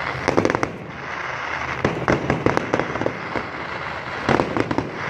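Distant fireworks going off: three clusters of rapid crackling bangs, about two seconds apart, over a steady background hiss.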